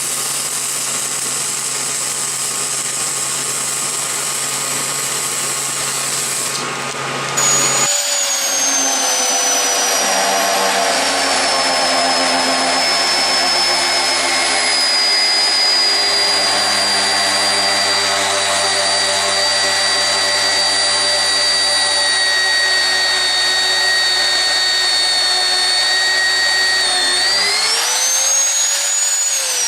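A steady hum, then an electric drill starts about seven seconds in and runs under load, drilling bolt holes through the steel bumper, its whine sinking slowly as it cuts. Near the end the pitch rises briefly, then the drill is switched off and winds down.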